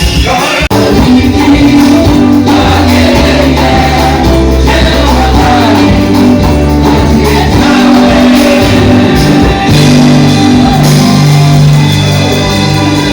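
Loud music with singing and a sustained bass line, which cuts out briefly less than a second in.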